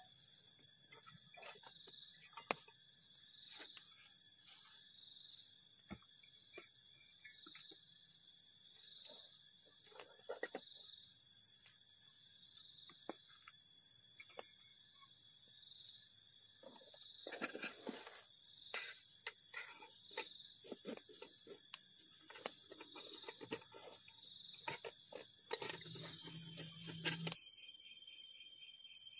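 A chorus of night insects with a steady high trill and a pulsing call about twice a second. Over it come small clicks and rustles of someone moving about inside a tent, busiest about two-thirds of the way in and near the end. Shortly before the end the chorus changes abruptly and its lower part drops out.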